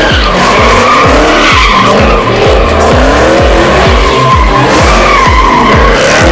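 Supercharged V8 of a Dodge Charger Hellcat on a Corsa cat-back exhaust, held at high revs while the rear tyres squeal through donuts. Music with a heavy, fast bass beat plays over it.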